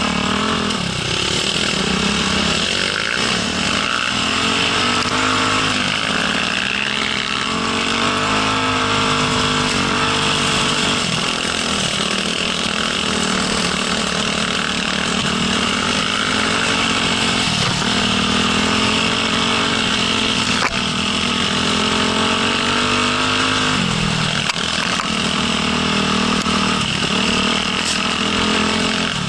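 Off-road dirt bike engine running close to the microphone, its revs rising and falling over and over as the throttle opens and closes.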